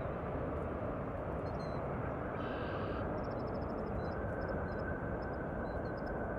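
McDonnell Douglas MD-11 trijet's engines running loud with a steady rumble as the jet rolls out just after touchdown, with a thin high whine coming in about two seconds in.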